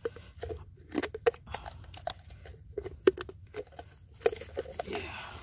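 Dry bamboo leaves and plastic litter crunching and crackling, a scatter of sharp irregular crackles, as someone moves about on them.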